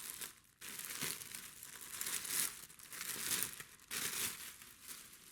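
Packaging crinkling and rustling in several bouts as a cordless hammer drill is lifted out of its box.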